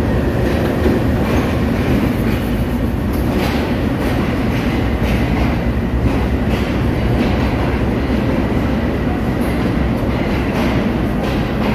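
Green Line Express, headed by a Pakistan Railways GEU-20 diesel-electric locomotive, rolling in along the platform. The locomotive passes, then the coaches roll by with a steady rumble, the wheels clacking over the rail joints.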